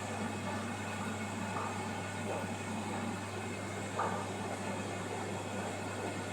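Steady mechanical hum and hiss of aquarium equipment running, such as the filter or air pump, with a couple of faint short blips.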